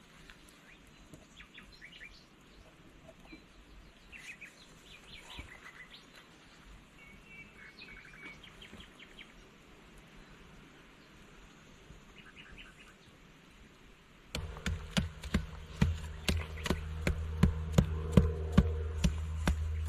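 Birds chirping faintly over quiet outdoor ambience; about fourteen seconds in, background music with a steady low bass and a regular clicking beat starts and becomes the loudest sound.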